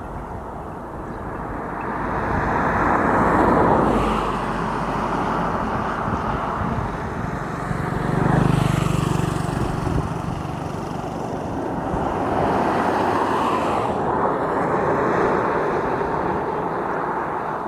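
Road vehicles passing one after another: three swells of engine and tyre noise that build and fade, the middle one with a low engine hum about halfway through.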